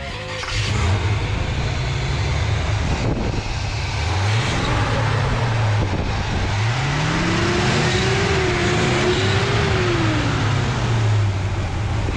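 Carbureted crate 350 V8 idling, blipped briefly, then revved up about halfway through, held at higher revs for a couple of seconds and let fall back to idle near the end.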